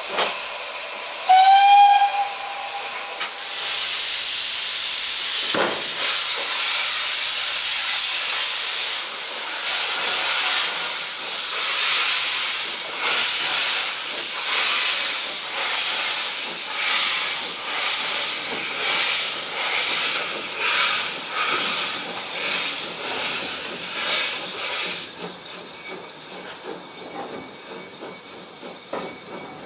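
Steam locomotive Kilmersdon, a Peckett 0-4-0 saddle tank, gives a short whistle, then hisses steam. Its exhaust beats come about once a second and quicken a little as it works the train, then fall away sharply near the end.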